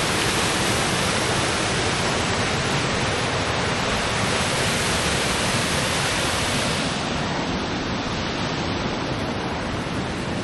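Waterfall pouring over rocks into a pool: a steady rushing of water, a little duller in the last few seconds.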